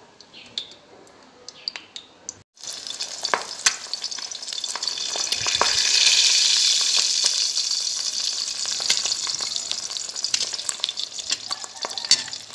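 An egg frying in hot oil in a wok: a loud, steady sizzle with scattered pops and spatters. It starts suddenly a couple of seconds in, after a few faint clicks, and is loudest around the middle.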